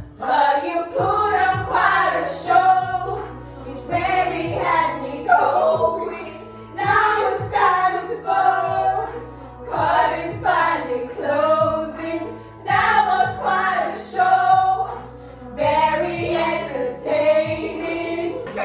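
Music: a song with several singing voices over a bass line and a steady beat.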